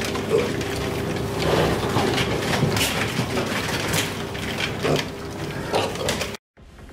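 Piglets feeding at a red plastic round trough feeder: snouts knocking and rattling the feeder in quick irregular clicks and knocks over a steady low hum. The sound cuts off abruptly near the end.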